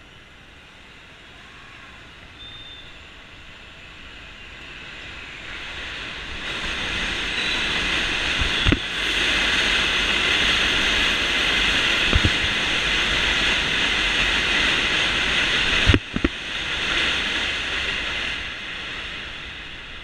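A subway train running on the elevated steel track overhead: a high, hissing rumble of wheels on rail that builds over several seconds, holds loud for about ten seconds, then fades. Three sharp knocks cut through it, about 9, 12 and 16 seconds in.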